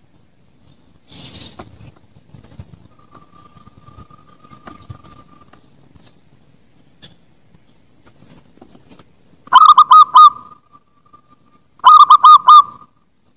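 Zebra dove (perkutut) cooing: two loud phrases of about four quick staccato notes each, about two seconds apart near the end, each ending in a short trailing coo. A faint held note comes a few seconds earlier.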